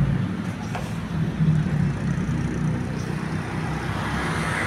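Diesel bus engine running at low revs, a steady low rumble with no horn sounding.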